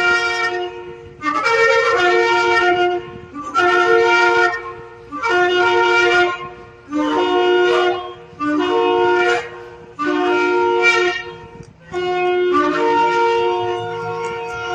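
Shofar blown in a series of about seven blasts, each a second or two long and moving between two notes a little apart.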